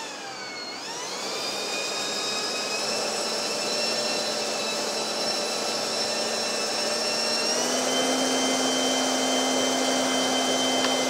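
Electric ducted fan (a FreeWing EDF unit in a 3D-printed handheld blower, on a 4S battery) running at high speed: a steady rushing of air under a multi-tone whine. The pitch dips and then climbs back about a second in, holds, and steps up a little higher about two-thirds of the way through as the throttle wheel is turned.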